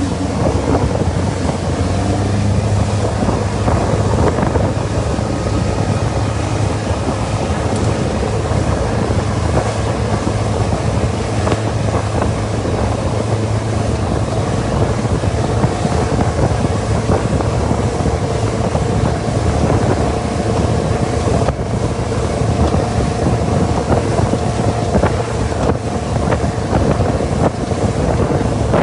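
A boat's motor runs steadily, with wind buffeting the microphone and water noise.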